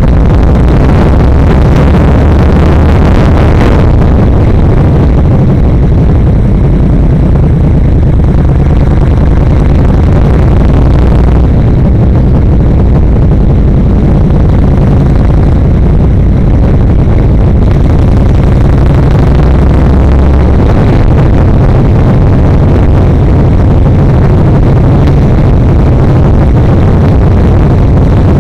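Yamaha XVS1300's 1304 cc V-twin engine running loud while riding, its low note shifting a few times as the throttle and speed change.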